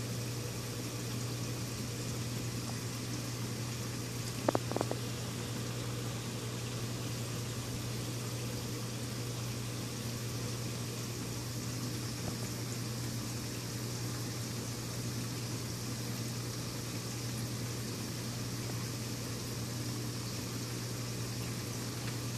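Reef aquarium equipment running: a steady low hum with a wash of trickling, bubbling water from the tank's circulation. Two brief clicks about four and a half seconds in.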